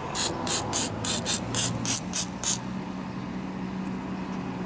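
Aerosol lubricant sprayed onto the engine's timing and cam gear teeth in about nine quick hissing squirts over the first two and a half seconds, with a steady low hum underneath.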